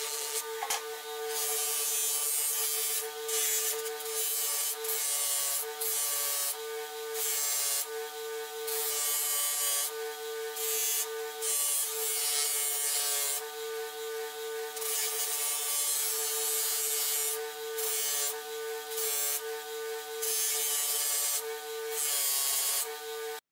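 A buffing machine runs with a steady hum, its stitched cotton buffing wheel spinning. A hiss comes and goes repeatedly as a bar of polishing compound, and then a metal part of the beer hand pump, is pressed against the wheel and eased off it.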